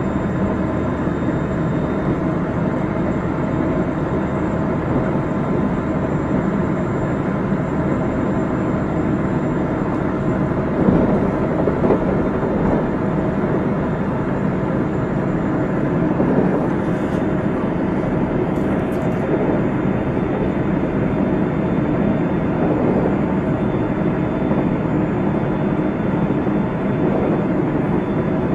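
Running sound aboard a JR Central 373 series electric train at steady speed: a continuous rumble of wheels on rail, with faint steady whine tones from the traction equipment. A couple of faint high ticks come around two-thirds of the way through.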